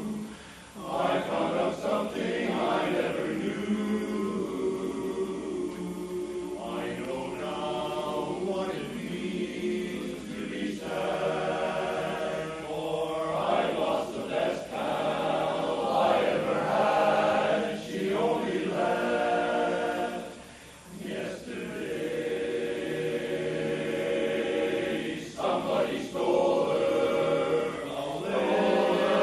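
Men's barbershop chorus singing a cappella in close four-part harmony. The chords are held in phrases, with a short break in the singing about two-thirds of the way through.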